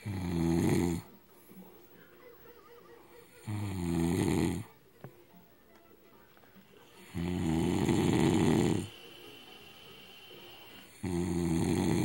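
A man snoring loudly in his sleep: four long, low snores about every three to four seconds, the third the longest, with quiet between them.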